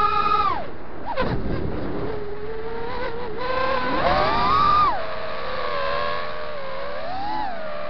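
FPV quadcopter's electric motors whining, the pitch following the throttle: it falls off sharply about half a second in, holds low and steady, climbs steeply around four seconds in, then drops back, with a short swell near the end. A brief rush of noise comes about a second in.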